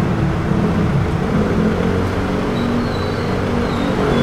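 Pickup truck engine running steadily with a low hum.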